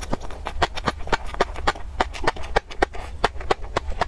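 Close-miked chewing of crunchy or popping food: crisp mouth clicks at a fairly even pace of about four to five a second.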